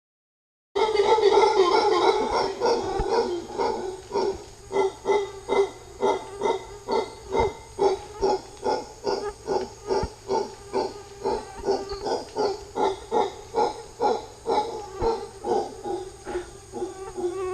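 Mantled howler monkeys howling, starting about a second in. A loud, continuous deep call lasts a few seconds and then breaks into a long run of rhythmic grunting pulses, about two a second.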